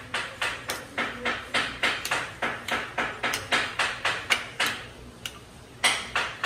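A hand mixing shredded squash strips into an egg batter in a bowl: rhythmic strokes about three a second, with a short pause near the end followed by one louder stroke.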